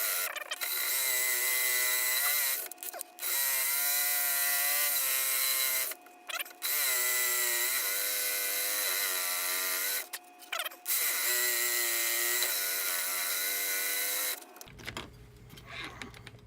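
Ryobi variable-orbit jigsaw with a Lenox metal-cutting blade sawing through inch-thick steel plate, the blade thicker-rated than the blade is meant for. The motor's pitch wavers as the trigger speed is varied. The cut pauses briefly three times and stops about a second and a half before the end.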